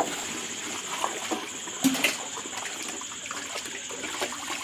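Water sloshing in a steel pot as hands wash and squeeze shelled snail meat, with a couple of sharp clicks about two seconds in.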